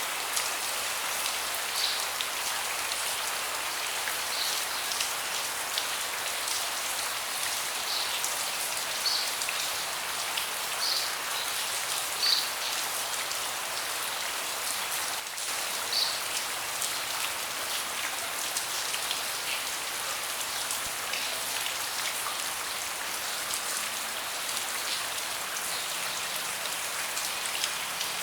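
Steady rain falling on a deck, a constant hiss with individual close drops landing in sharp, irregular ticks, the loudest about twelve and sixteen seconds in.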